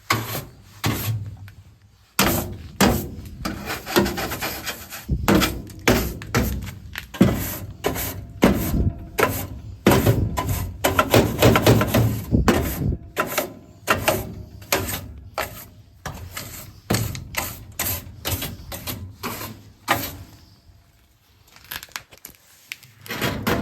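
A brush scrubbing built-up gunk out of a gas furnace, in quick, irregular strokes with a short pause near the end.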